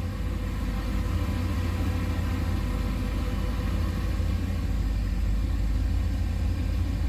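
Turbocharged 6.0-litre LS V8 idling steadily at about 780 rpm, an even low rumble with no revving, heard from inside the car.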